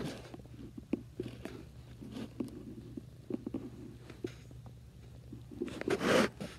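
A domestic cat purring close to the microphone, a low steady rumble, under the rustles and taps of the phone being handled against its fur. About six seconds in there is a louder brush of noise.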